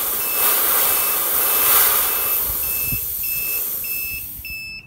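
High-pressure air hissing out of the Yong Heng HPA compressor's bleed valve as the fill line is vented after a fill to 3,500 psi, the hiss fading near the end. The compressor's electronic beeper sounds about twice a second, the whole time.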